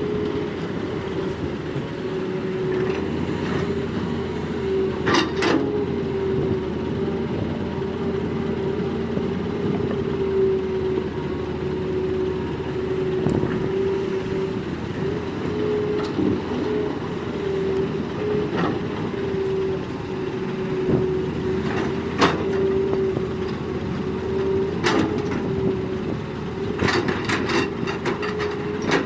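Excavator engine and hydraulics running at a steady pitch with a constant whine, with a few sharp knocks, most of them near the end.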